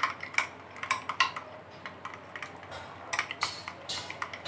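Spoon stirring thick mayonnaise-and-ketchup sauce in a glass bowl, clinking and scraping against the glass at an irregular pace.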